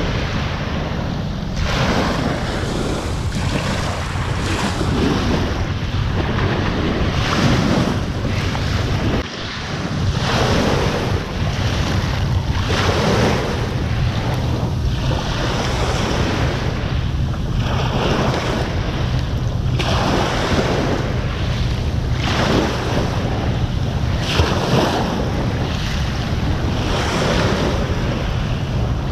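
Small waves washing onto the beach, swelling and fading every couple of seconds, with wind buffeting the microphone as a steady low rumble.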